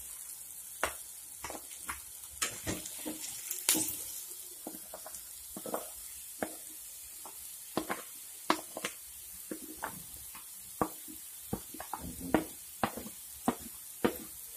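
Chopped ridge gourd pieces being tipped off a steel plate into a hot pan of frying onions and tomatoes: irregular sharp taps and knocks of the plate and spoon and the dropping pieces, about one or two a second, over a faint sizzle.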